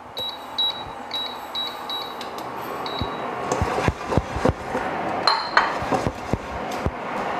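Short high beeps from an induction cooktop's touch buttons as the heat is set, then from about halfway a dry nonstick wok shaken and slid across the glass cooktop, the raw sesame seeds inside rattling and skittering, with sharp knocks of the pan on the glass.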